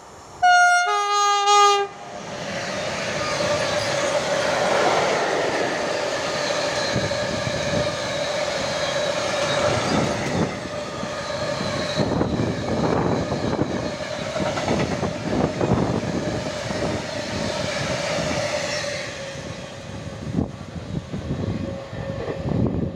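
Two-note horn from an E4DCU (Bombardier TRAXX) electric locomotive, a higher note then a lower one, about half a second in, sounded as a greeting. Then a freight train of tank wagons passing close by: wheels clattering over rail joints with a steady hum, thinning out near the end.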